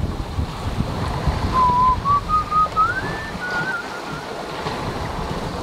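Wind buffeting the microphone and sea rushing past a sailboat's hull under sail. About a second and a half in, someone whistles a short wavering phrase of a few notes that steps up in pitch and then dips.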